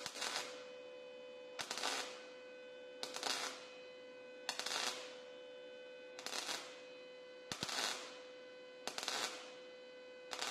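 MIG welder laying a series of short stitch welds: a crackling burst of about half a second, repeated at an even pace of roughly one every second and a half, over a steady electrical hum.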